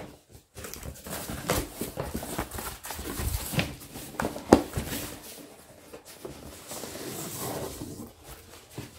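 Cardboard shipping box being handled and turned over: irregular scraping and rubbing of cardboard with taps and knocks, one sharper knock about halfway through.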